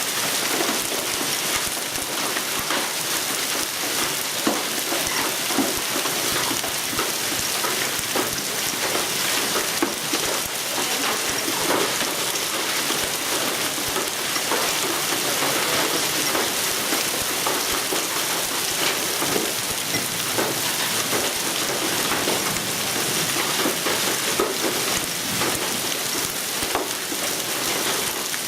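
Heavy rain and hail pelting down steadily: a dense, even hiss thick with small sharp impacts.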